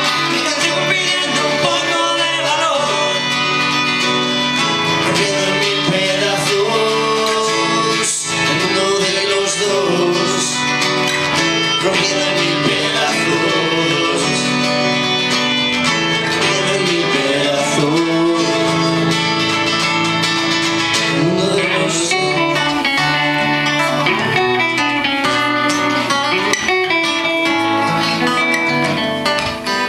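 Live band playing a guitar-led instrumental passage of a pop-rock song, with plucked guitars prominent and no clear sung lyrics.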